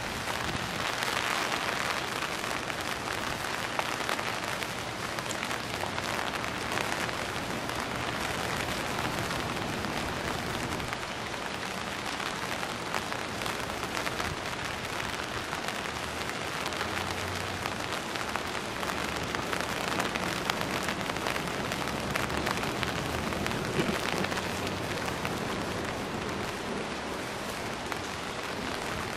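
Steady rain falling, heard from under an umbrella.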